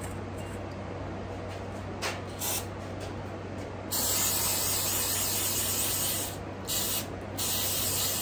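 Pressurized spray hissing in bursts while cleaning out small-engine parts: two brief puffs, then a long blast of about two and a half seconds and two shorter ones.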